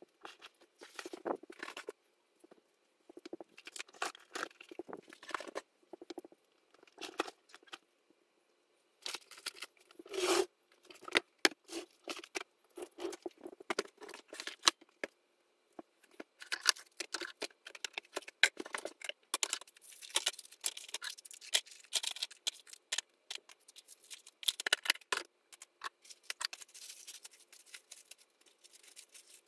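Things being rummaged through and handled in a storage bin: an irregular run of rustles, clicks and scrapes, busier in the second half.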